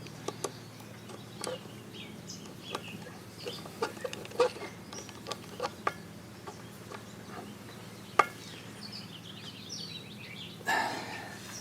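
Scattered sharp clicks and taps of hand work on an outboard motor's lower gear case as a drain/vent plug is put back, with birds chirping in the background.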